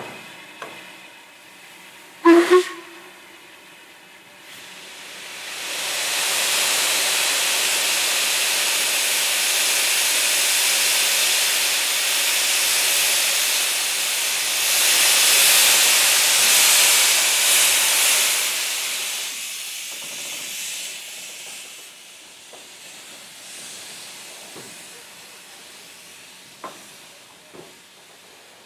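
Steam locomotive 45596 Bahamas, an LMS Stanier Jubilee, gives a short whistle toot about two seconds in. From about five seconds in, steam hisses loudly and evenly for some fifteen seconds, growing stronger towards the middle before dying away.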